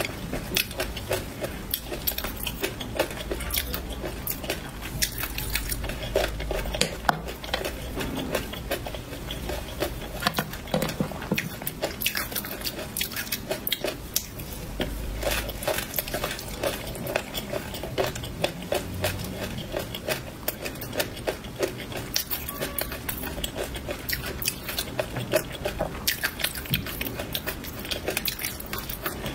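Close-miked chewing and crunching of peanuts in a thick sauce: a dense run of crisp crackles with wet mouth sounds. An orange plastic spoon scoops from the plate between bites.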